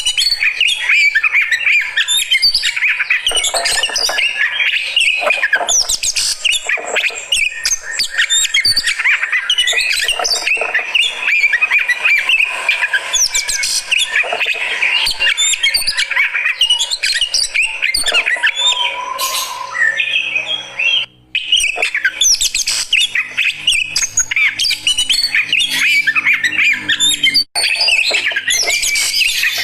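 Oriental magpie-robin (kacer) singing rapidly and without pause, a dense stream of varied whistles and harsh chattering notes, broken off briefly twice in the second half.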